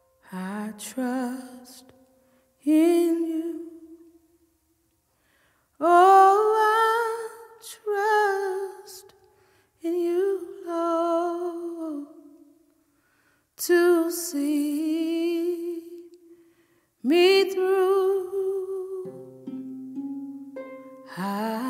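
A solo voice singing slow, drawn-out phrases with vibrato, each followed by a short silence. Near the end, sustained instrumental chords come in underneath.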